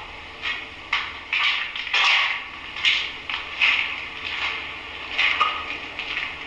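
Footsteps scuffing and crunching on a debris-covered concrete floor: irregular short gritty scrapes, about one or two a second.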